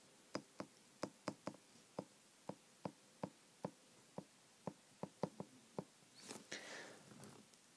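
Faint, irregular clicks of a stylus tip tapping and lifting on an iPad's glass screen while handwriting, about three a second. Near the end they give way to a soft, breathy noise.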